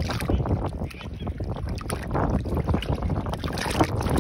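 Small waves sloshing and washing over a seawall block at the waterline, with wind rumbling on the microphone. The wash grows busier in the second half.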